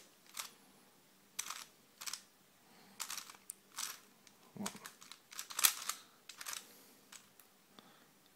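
Short, sharp plastic clicks and clacks of a Gear Mastermorphix twisty puzzle being handled and turned, about a dozen spread irregularly, with a duller knock about halfway through.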